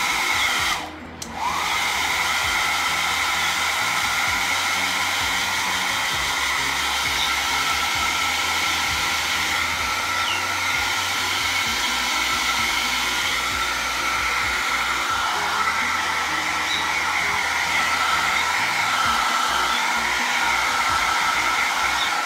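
Small handheld hair dryer running steadily with a high whine, blowing on a wet kitten to dry it. It cuts out briefly about a second in and spins back up.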